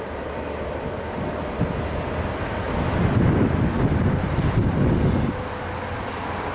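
A High Speed Train's Class 43 diesel power car running through the station without stopping: engine and wheel rumble builds, is loudest about three to five seconds in as the power car goes by, then drops suddenly.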